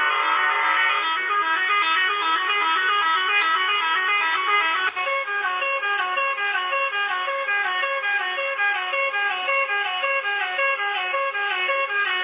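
Musical air horn playing a fast tune of stepped notes that repeats as a melodic phrase; the tune changes to a new phrase about five seconds in.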